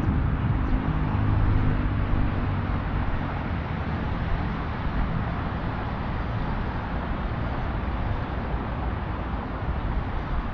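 Steady outdoor road-traffic noise. In the first two or three seconds a vehicle engine's hum stands out, then fades.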